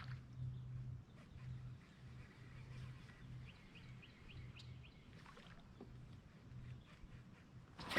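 Faint outdoor ambience on the water: a bird gives a quick series of short rising chirps about three to five seconds in, over a low hum that pulses on and off.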